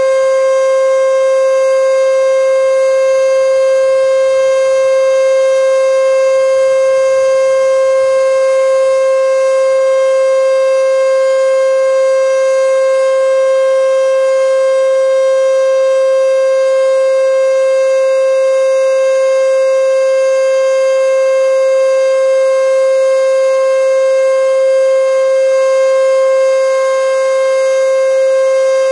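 E.D. Bullard 3H27 "Weltex" outdoor warning siren sounding its Full Alert signal: a loud, steady tone held at one pitch, with no rise or fall.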